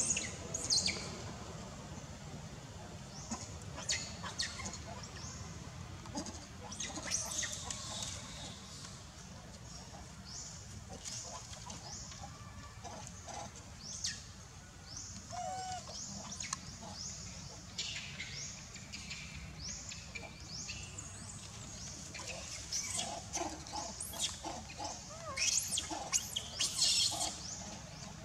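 Macaques giving many short, high-pitched squeals and screeches, in clusters that thicken near the end, over a low steady rumble.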